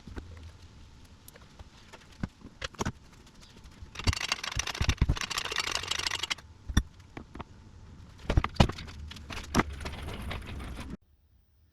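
Scattered metal knocks and clanks with a stretch of rattling and scraping in the middle, from hands-on work pulling a Sea-Doo personal watercraft engine out of its hull. The sound cuts off abruptly near the end.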